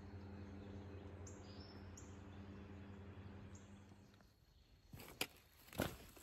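A few short, high bird chirps over a steady low hum. About four seconds in this gives way to footsteps and trekking-pole taps on a dirt trail, a handful of sharp knocks that are the loudest sounds.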